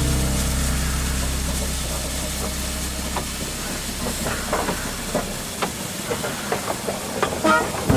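Narrow-gauge train noise: a steady hiss with scattered clicks and knocks, after a low held tone fades out over the first few seconds. Music comes back in near the end.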